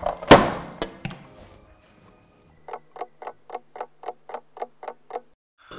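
A loud knock, with a few lighter ones after it, as a plastic tray of rocket canisters is turned over and set down on the table. Then a wall clock ticks quickly, about five ticks a second, for under three seconds.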